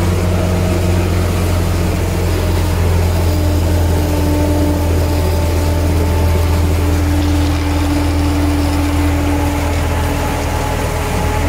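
Belarus MTS-50/52 tractor's four-cylinder diesel engine running steadily, heard from inside the cab, a loud low drone with a fainter higher hum over it.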